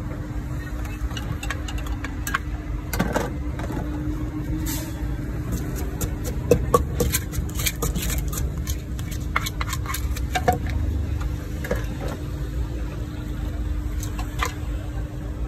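Wooden pestle knocking and grinding in a mortar, making irregular clicks and knocks that come thickest a few seconds into the pounding, over a steady low background rumble.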